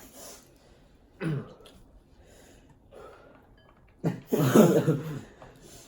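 A person coughing from eating very spicy noodles: a short cough about a second in, then a louder, longer coughing burst about four seconds in.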